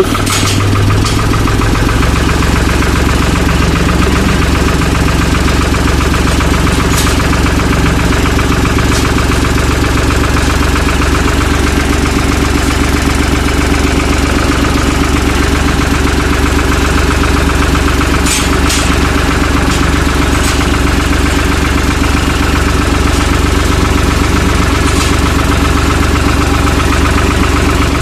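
An engine running steadily at idle, at a constant speed.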